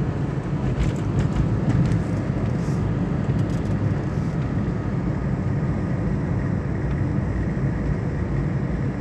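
Steady low rumble of a car driving along a highway, its engine and tyre noise running evenly.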